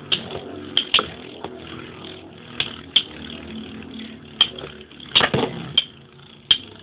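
Two Beyblade spinning tops in a clear plastic stadium, whirring and clacking sharply against each other and the stadium wall about a dozen times, with a quick run of hits about five seconds in.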